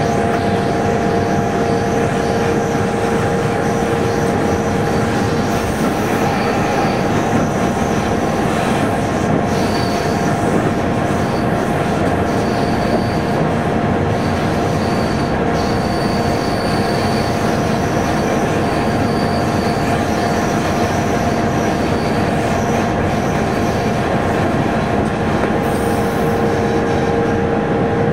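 Train running at speed, heard from inside the driver's cab: a steady drone with several held tones under it. Short high-pitched squeals come and go now and then through the middle.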